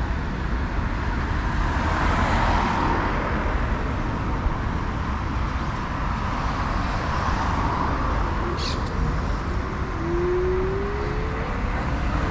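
Road traffic on a city avenue: cars passing over a steady hum of traffic. A short rising whine comes about ten seconds in.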